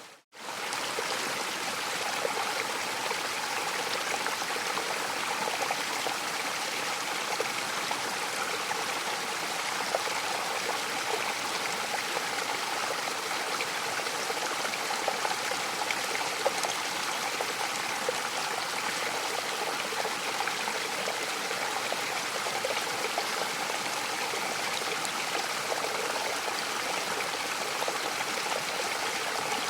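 Mountain waterfall: a steady, even rush of falling water, which drops out almost to nothing for a fraction of a second just after the start before carrying on unchanged.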